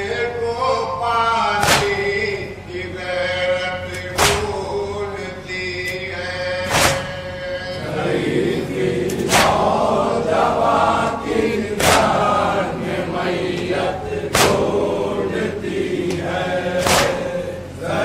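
A group of men chanting an Urdu noha (Shia Muharram mourning elegy), the singing growing fuller about halfway through. Sharp unison chest-beating slaps (matam) land in time with it about every two and a half seconds, seven times.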